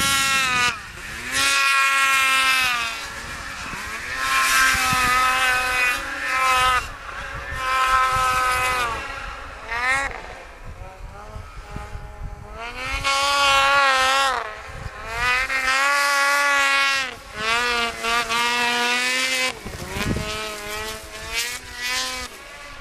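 Snowmobile engines revving, the pitch climbing and falling again in repeated runs of a few seconds each as the sleds accelerate and ease off.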